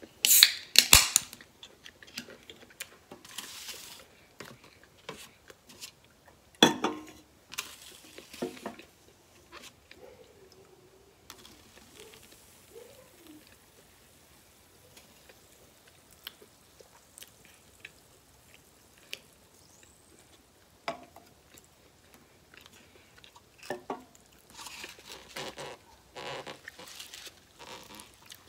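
A small soda can cracked open with a sharp hiss about half a second in, the loudest sound. It is followed by scattered eating and handling noises: chewing, and cans and styrofoam plates knocking on the table, with another cluster of knocks near the end.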